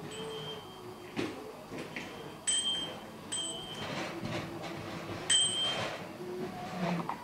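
Toy pram being pushed along, giving short high-pitched chirps, four of them at irregular intervals, with a few light knocks in between.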